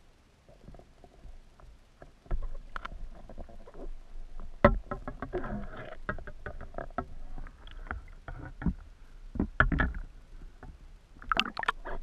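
Underwater handling noise picked up through a speargun-mounted camera's housing: water sloshing and rumbling against the housing, with irregular clicks, knocks and a few heavy thumps as the diver handles the speargun and a speared fish. It starts about two seconds in, after a near-quiet opening.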